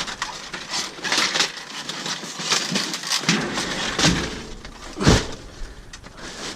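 Rummaging through dumpster contents: an irregular run of clattering, crackling and knocking as items are shifted about, with one loud knock about five seconds in.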